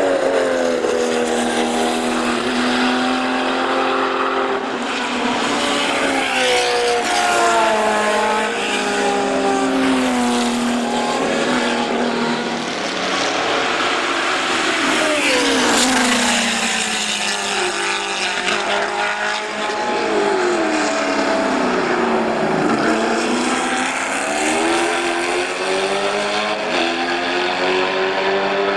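Several 1970s endurance racing cars passing one after another at speed, engines revving up and dropping in pitch as they go by and shift gear.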